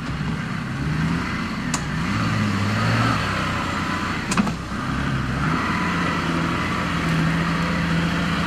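Engine sound effect of a toy off-road Jeep: a motor running and revving up and down in pitch, with two sharp clicks partway through.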